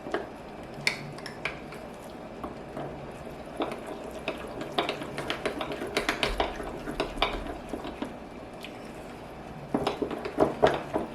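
A utensil clinking and scraping against a mixing bowl while stirring cornmeal batter for corn cakes, the egg being mixed in. The clicks come in quick runs, thickest near the end.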